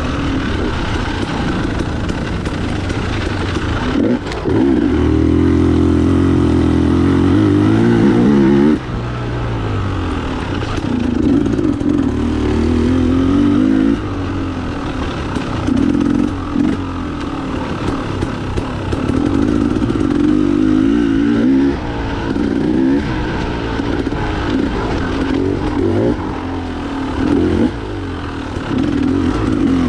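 Off-road enduro motorcycle engine revving hard in repeated surges and easing off between them as the bike is ridden over the course. The longest, loudest pull comes about four seconds in and cuts off sharply about five seconds later.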